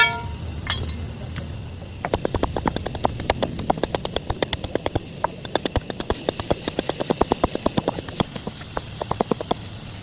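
A hand tool striking wood in a fast, even run of sharp knocks, about five or six a second, starting about two seconds in and stopping near the end, as in chopping or chiselling out a wooden pot.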